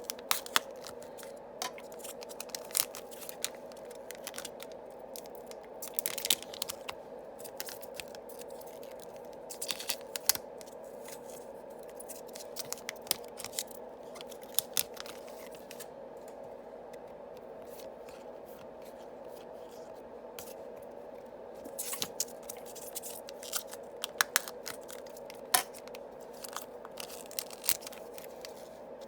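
Foil Yu-Gi-Oh! booster packs being opened and the cards handled: scattered clusters of crinkling, scraping and sharp clicks with short quiet gaps. A steady low hum runs underneath.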